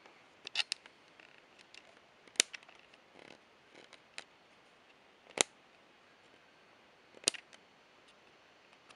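Scattered sharp clicks and taps over a quiet background. The three loudest come about two and a half, five and a half and seven and a half seconds in, with no thunder rumble.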